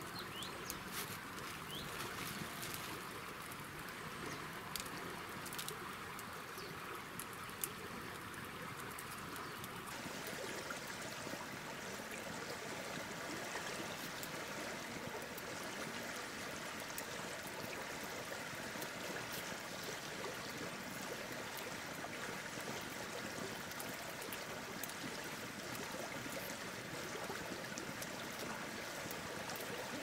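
Steady outdoor hiss with a few light clicks and taps of split bamboo sticks being handled; the hiss changes character about ten seconds in.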